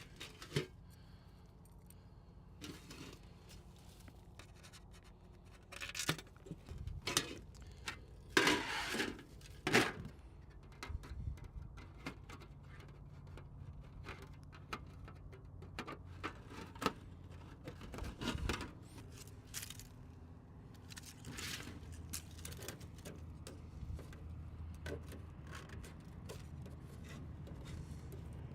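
Intermittent handling noises: light metallic clinks, scrapes and rustling, loudest around eight to ten seconds in.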